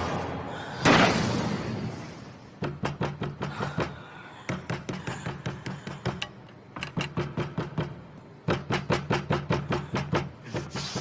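Film background score: a loud dramatic hit about a second in, then a fast ticking percussion beat, about five strikes a second, over a low steady tone, with short breaks near the middle.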